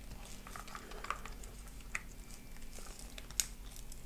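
Small clicks and soft rustling from a battery pack and its wires being handled and pushed into place in a plastic RC crawler chassis, with one sharper click a little before the end.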